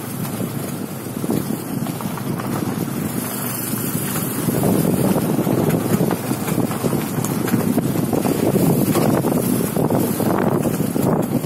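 Road and tyre noise inside a moving BMW E32's cabin, a steady rumbling noise that grows louder about four and a half seconds in.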